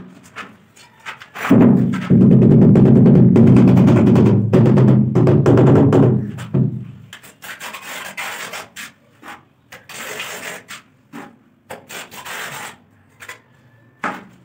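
A loud, low drone with a steady pitch sounds for about five seconds, starting a second and a half in. It then gives way to short, irregular scraping and rubbing as cement mortar is scooped and worked in a tray for tiling.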